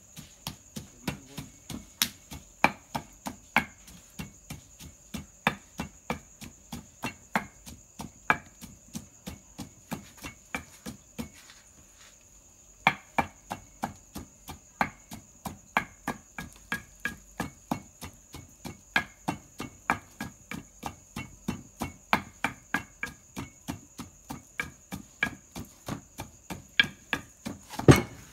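Long wooden pestle pounding soft ingredients in an earthenware mortar, a steady beat of about two to three strikes a second, with a brief pause a little before halfway. Crickets chirr steadily throughout.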